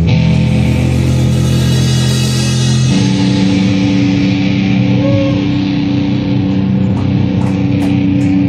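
Live punk rock band: electric guitar and drum kit, with held guitar chords under crashing cymbals. About three seconds in the guitar settles onto one steady, sustained note that rings on while the drums keep playing.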